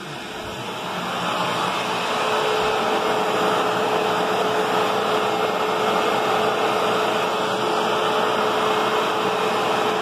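Hoover WidePath bagless upright vacuum cleaner running. It grows louder over the first second or so, then runs steadily with a steady hum tone.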